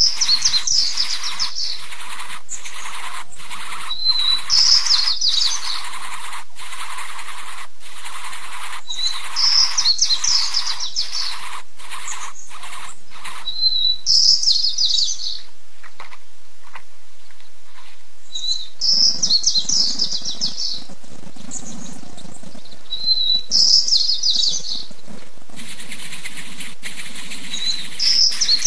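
A small bird repeating the same short song phrase over and over, about every four to five seconds: a brief high note, then a rapid, high chattering trill lasting about a second. A steady hiss lies under it, with faint clicking through the first half.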